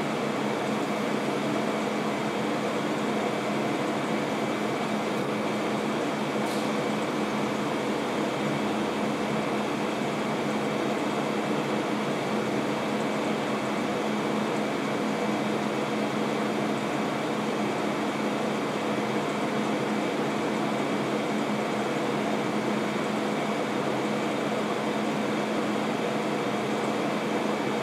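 Steady, unchanging hum and hiss with a low steady tone underneath, with a faint brief tick about six and a half seconds in.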